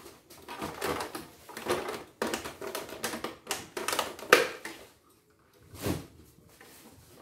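Screwdriver clicking and scraping on the metal and plastic parts of a CNY E900 portable embroidery machine being taken apart by hand: a run of irregular clicks and knocks, the sharpest about four seconds in, with a brief pause just after five seconds.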